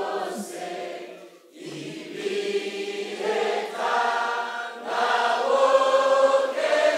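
A congregation singing a Kirundi hymn together, in long held notes, with a short break for breath about a second and a half in.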